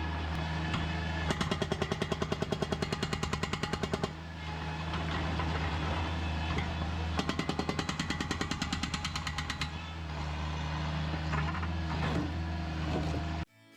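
A powered breaker hammers concrete in fast repeating blows, about seven a second, in two runs of a few seconds each. An engine runs steadily underneath. The sound cuts off abruptly near the end.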